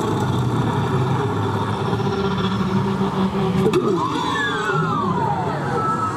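A motor running steadily. About two-thirds of the way in there is a single sharp knock, followed by a few high squealing glides that rise and fall.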